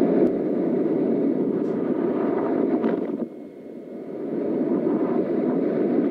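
Whitewater rapid rushing, heard from a camera on a kayak running it: a loud, steady, muffled rush of water that drops off briefly about three seconds in and then builds back.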